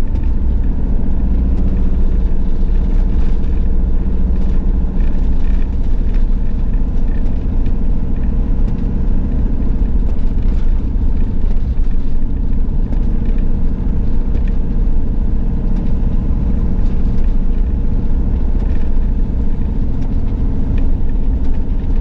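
Two-wheel-drive van driving on a snow-covered road: a loud, steady low rumble of engine and tyres with a constant engine hum.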